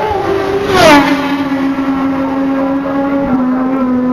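A racing motorcycle passing at high speed about a second in: its engine note drops sharply in pitch as it goes by, then holds a steady lower note as it heads away.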